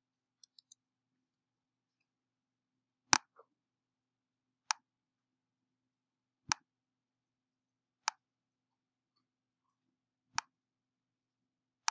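Computer mouse clicking: six single sharp clicks spaced a second or two apart, over a faint steady low hum.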